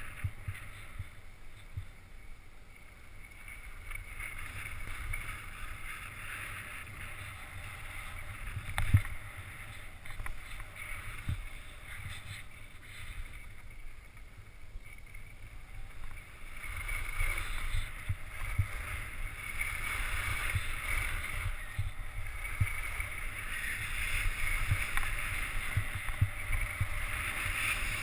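Skis sliding and scraping over packed, groomed snow, picked up by an action camera worn by the skier, with low knocks as the camera is jolted over bumps. The hiss grows louder about halfway through.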